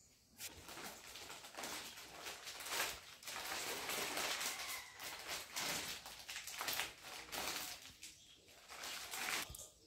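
Plastic flour packet crinkling and rustling as flour is tipped out of it into a steel bowl, the sound swelling and fading unevenly and stopping shortly before the end.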